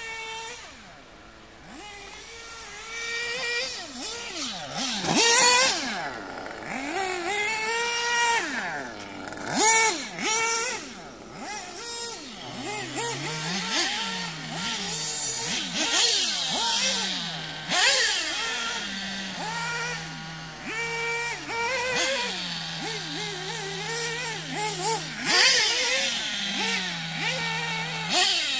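1/8-scale RC off-road buggies (Mugen MBX7, Losi 8ight 2, Sworkz) running around the track, their motors revving up and down with pitch rising and falling sharply as they accelerate and brake. In the second half there is a steadier lower hum with brief dips.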